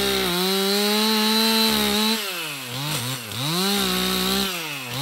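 Stihl MS 362 C 59 cc two-stroke chainsaw running at full throttle, cutting through old boards with a dull, badly stretched chain. About two seconds in the engine speed drops, then it revs up and down a few times.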